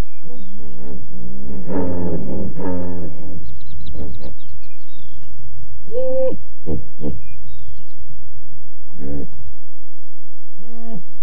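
Hippopotamuses calling: a long, deep, pulsing call in the first three seconds, then shorter calls about six seconds in, around nine seconds, and near the end.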